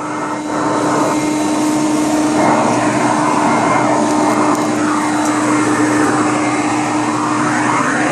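Hoover Conquest commercial upright vacuum running: a steady motor hum under loud rushing suction, with the airflow sound sweeping up and down in pitch.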